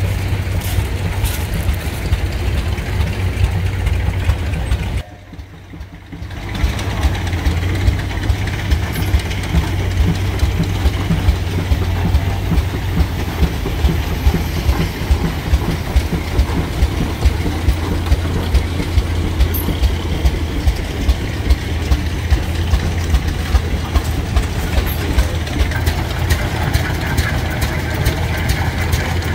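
Heavy antique tractor running with a low steady hum and a regular beat about once a second. The sound drops away briefly about five seconds in.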